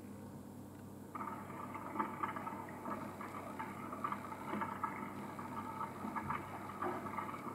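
Rain falling in a steady drizzle, heard as live audio from an outdoor Ring camera through a small smart-display speaker, thin and crackly; it comes in about a second in.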